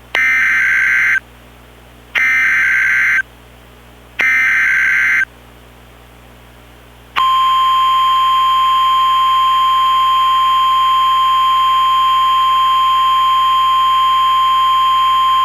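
Emergency Alert System opening: three roughly one-second bursts of SAME header data tones, about a second apart. About seven seconds in, a loud, steady single attention tone near 1 kHz begins, with a hiss around it, and runs on.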